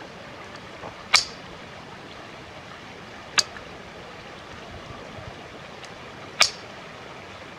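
Three sharp cracks of .22 Short rounds fired from a Marlin Model 60 rifle, two to three seconds apart. The low-powered shorts are too weak to cycle the semi-automatic action, so each shot is fired single.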